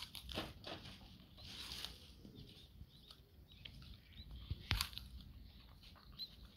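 Mixed-breed dog chewing and crunching a napa cabbage leaf: soft, irregular wet crunches and clicks, with one sharper crack a little before five seconds.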